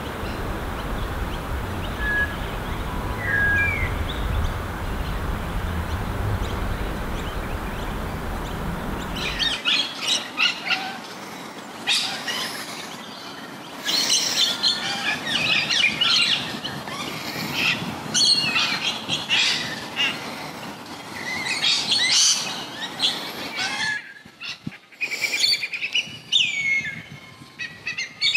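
A steady low rumble of background noise with two faint chirps, then a busy chorus of small birds chirping and calling. Near the end come curving, falling whistles: a whistling kite beginning its call.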